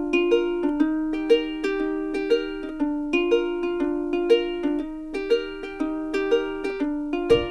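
Background music: a light, plucked-string tune in a steady rhythm, ukulele-like.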